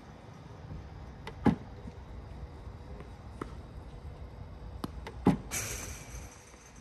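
Tennis ball machine practice on a hard court: two sharp pops, about a second and a half in and again near the end, the second trailed by a brief hiss, with fainter taps of balls being struck and bouncing in between.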